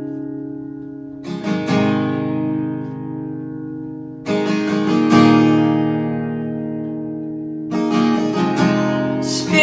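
Acoustic guitar strumming slow chords, about one every three seconds, each struck with a few quick strokes and left to ring out, in an instrumental passage of a worship song.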